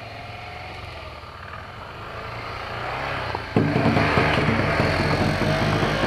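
Motorcycle engine running at low revs, a steady low hum that slowly grows louder. About three and a half seconds in, loud background music cuts in suddenly.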